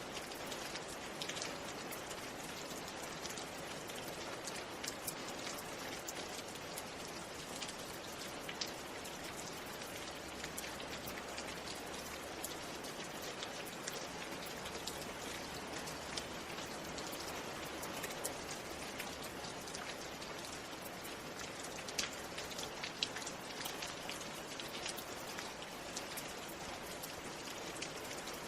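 Steady rain: an even hiss with individual drops ticking sharply here and there, a few louder ticks near the end.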